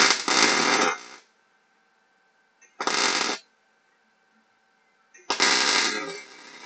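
Electric welding arc striking in three short bursts, the first about a second long, a brief one about three seconds in, and a longer one near the end: tack welds fixing steel mesh panels to a frame.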